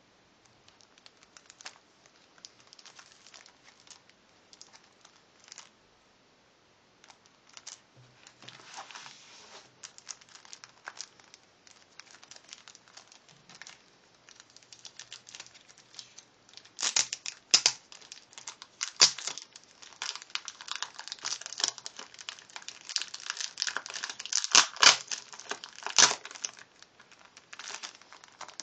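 Clear plastic wrapper on a pack of origami paper crinkling as hands handle and open it. The crackling is sparse and faint at first, then gets much louder and denser a little past halfway.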